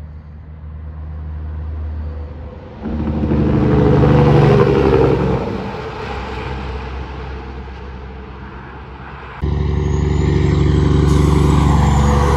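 Heavy diesel truck engines accelerating past, loud and growing sharply about three seconds in, then easing off. A second truck engine starts abruptly near the end.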